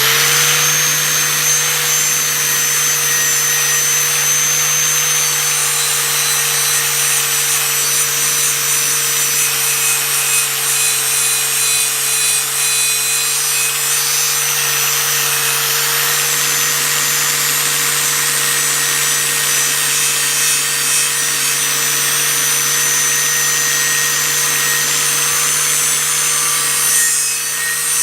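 Angle grinder fitted with a wire wheel, running at full speed and scrubbing rust off a steel machete blade. The motor settles to a steady whine just after coming up to speed, under a loud hiss of wire bristles on metal that varies a little near the end.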